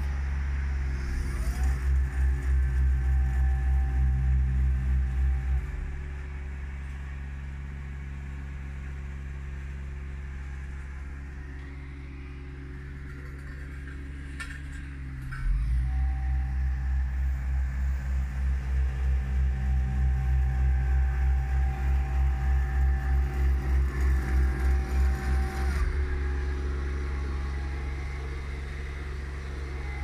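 Hamm HD 8 tandem asphalt roller running: a deep steady engine drone with a fast pulsing in level. It drops to a quieter rumble about six seconds in and comes back loud about halfway through.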